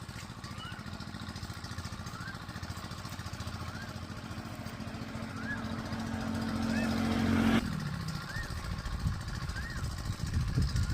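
A small engine running with a steady throb, building in speed and loudness and then dropping back abruptly, falling in pitch, about three-quarters of the way through. A bird repeats a short rising chirp about every second and a quarter.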